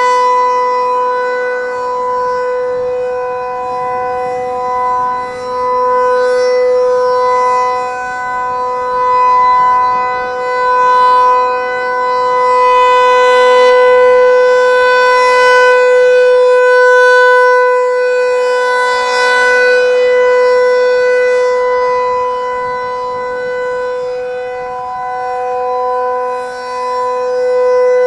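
Federal Signal 508-128 outdoor warning siren sounding a steady full-alert tone, its chord of overtones held at one pitch while it rotates, so the level slowly swells and fades, loudest about halfway through.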